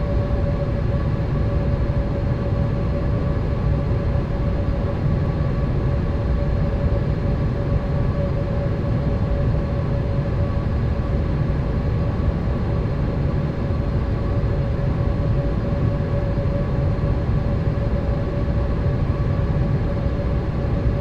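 Steady cabin drone of a Boeing 787 in flight: a constant low rumble of engines and airflow with an even hum tone above it, unchanging throughout.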